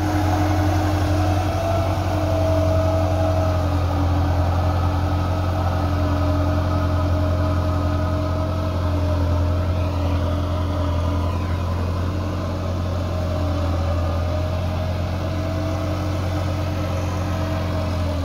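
Massey Ferguson 375 tractor's Perkins diesel engine running steadily under load as it drags a leveller through wet paddy-field mud.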